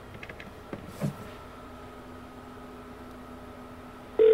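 Polycom desk phone on speakerphone placing a call: a few keypad button clicks and a thump, then a faint steady hum while the line connects. Near the end a loud, steady telephone call tone starts.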